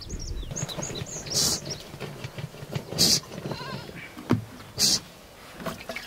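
Sheep bleating in the flock, with a faint call in the middle and a low falling call a little after. Three short hiss-like bursts come about a second and a half apart and are the loudest sounds.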